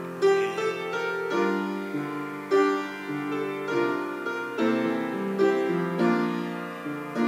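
Piano-voiced keyboard playing an instrumental interlude: a new chord struck about every second over a stepping bass line, with no voice.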